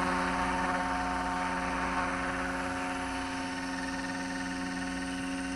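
Roban Superscale AS350 RC helicopter hovering low and settling onto the ground, its motor and rotors giving a steady hum with a clear pitch that slowly gets a little quieter.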